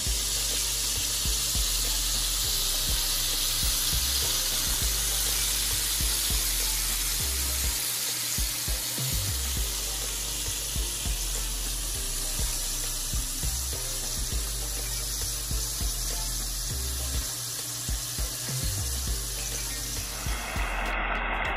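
Two whole yellowtail snapper deep-frying in hot oil: a steady dense sizzle, with background music's beat and bass line underneath. The sizzle cuts off sharply near the end.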